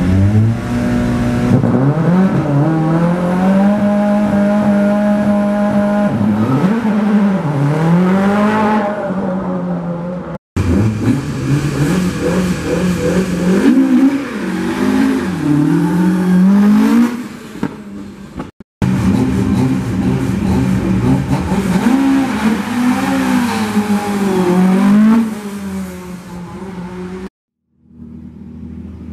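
Ford rally cars' engines (a Focus, a Mk2 Escort, a Fiesta), heard one after another in separate cuts. Each holds a steady idle and is blipped on the throttle, so the engine note swings up and down.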